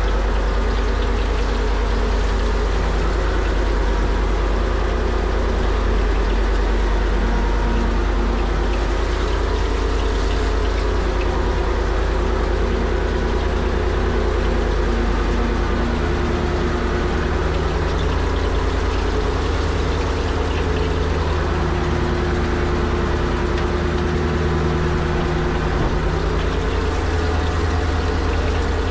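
Fishing boat's engine running steadily, a constant low-pitched drone with no change in speed.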